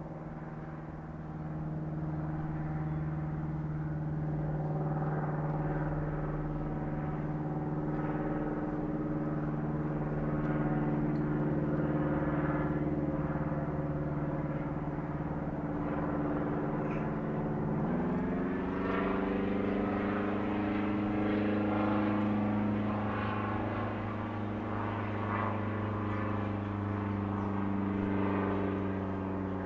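Single-engine Cessna's piston engine and propeller droning steadily in flight. About 18 seconds in, the engine note jumps up and rises, then holds higher as the plane pulls up into a climb with the banner in tow.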